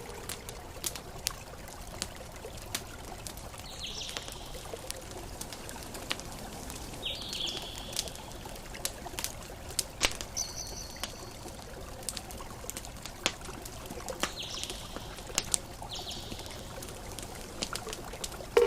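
Campfire crackling, with irregular sharp pops over a steady soft wash of water. A short bird call sounds every few seconds, about five times.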